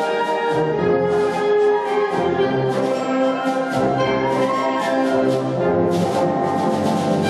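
Concert wind band playing live, brass and French horns to the fore, holding full sustained chords over regular accented beats.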